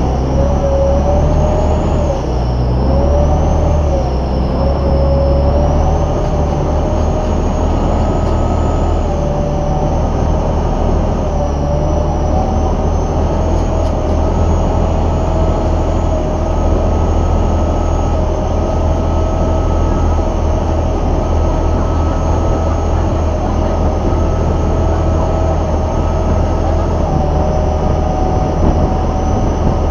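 Engine of a Chao Phraya river tourist boat running steadily under way, heard on board: a low, even drone with a whine whose pitch wavers for the first few seconds and then holds steady.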